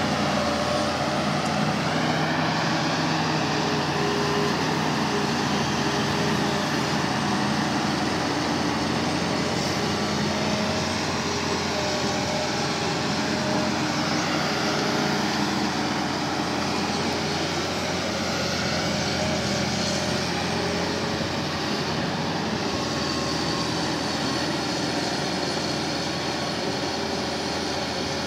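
Hitachi Zaxis 350 LCH excavator working at close range: its diesel engine runs steadily under load, with higher whines that slowly shift in pitch.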